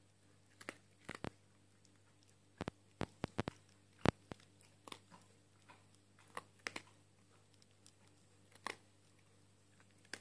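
Small dog crunching dry kibble: irregular sharp crunches, busiest and loudest about three to four seconds in, then sparser.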